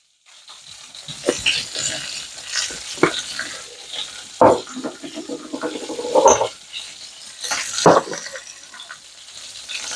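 Food sizzling in a frying pan with a steady hiss, broken by several sharp knocks and clinks as spice jars and a plastic spoon are handled and set down on the counter.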